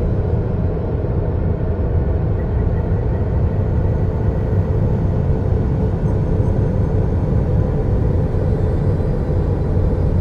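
Steady, unbroken low rumbling drone, an ambient 'planet sound' soundscape with its energy deep in the bass and no distinct events.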